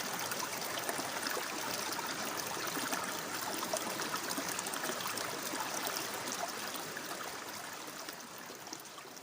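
Running water trickling and splashing steadily, like a small stream, gradually fading down over the last few seconds.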